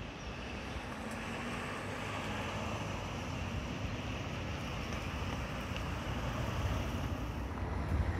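Road traffic: a steady rush of car tyre noise on the road, slowly growing louder. Wind starts buffeting the microphone near the end.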